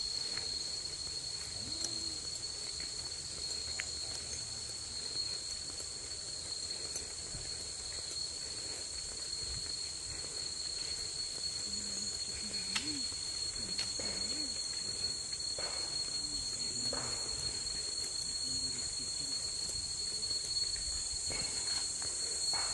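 A chorus of insects chirring steadily, with one constant high-pitched tone over a high hiss.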